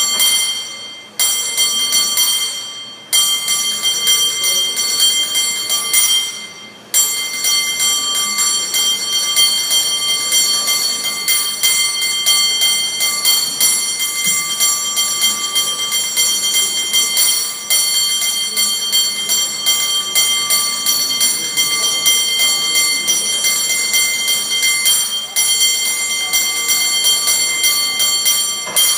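San Francisco cable car bell rung in a fast, rhythmic competition routine, its ringing overtones sustained throughout. The striking pauses briefly about a second, three seconds and six and a half seconds in, then carries on without a break until it stops just before the end.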